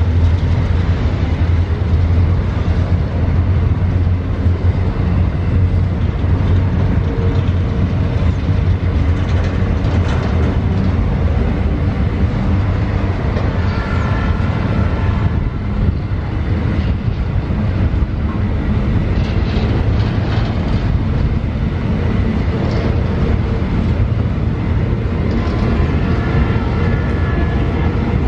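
Freight train of empty hopper wagons rolling past on curved track, a steady loud rumble of wheels on rail. Faint high squeals come in about halfway through and again near the end.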